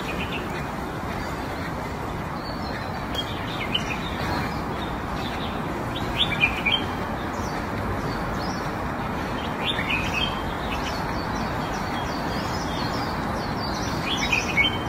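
Small birds chirping in short clusters every few seconds over a steady background hiss.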